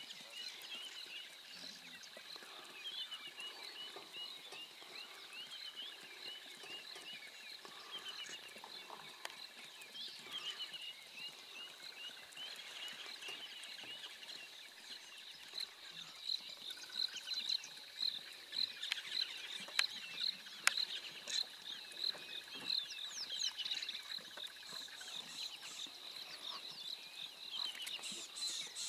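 Natural chorus at a waterhole: frogs calling with a fast, even, high-pitched pulsing, mixed with many short bird chirps, busier in the second half.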